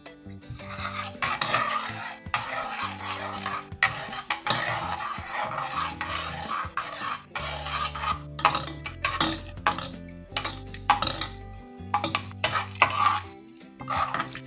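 Metal spoon stirring a pan of water, scraping and clinking repeatedly against the pan's bottom and sides, with the swish of the swirling liquid.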